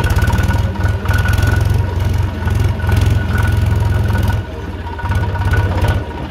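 HMT tractor's diesel engine running steadily as the tractor drives across a field, a fast low chugging that drops in loudness for a moment about two-thirds of the way through.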